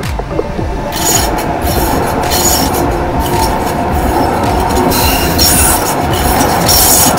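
Electric light rail train passing at close range, its steel wheels rumbling and hissing on the rails. The noise swells about a second in and stays loud.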